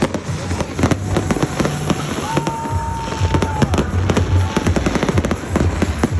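Fireworks bursting and crackling in rapid, overlapping cracks. A steady high whistle sounds for about a second and a half, starting about two seconds in.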